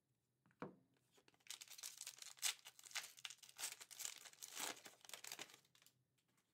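A foil-wrapped Fleer Ultra Marvel Midnight Suns trading card pack being torn open by hand, the wrapper crinkling and crackling for about four and a half seconds. A brief knock comes just before it, about half a second in.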